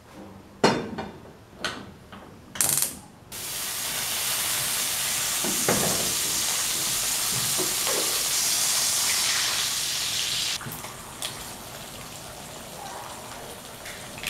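A few clicks and knocks as a frying pan is set on a gas hob and the burner is lit, then a steady hiss from the burner and the heating pan that drops to a quieter hiss for the last few seconds.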